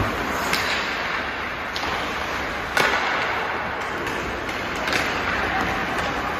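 Ice hockey play on a rink: a steady hiss and scrape of skates on the ice, with several sharp clacks of sticks and puck, the loudest about three seconds in.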